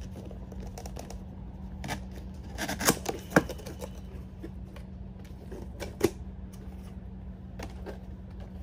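Cardboard packaging being worked open by hand: scattered clicks, taps and scrapes of cardboard flaps, with a cluster of sharp snaps about three seconds in and another about six seconds in, over a steady low hum.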